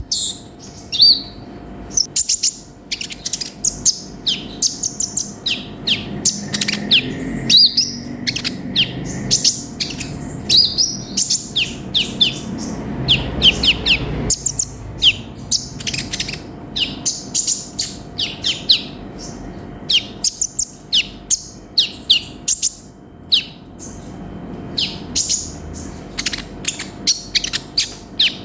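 Konin (sunbird) singing a fast, busy song of short, high chirps and twitters, one after another with hardly a pause.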